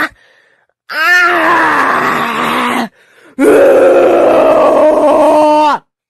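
Two long, loud wailing cries from a voice, each about two seconds, with a short pause between them. The first rises and then falls in pitch. The second holds a high pitch and slides slowly downward before cutting off.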